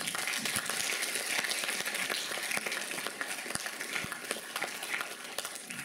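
Audience applauding: many hands clapping together in a dense patter that slowly fades toward the end.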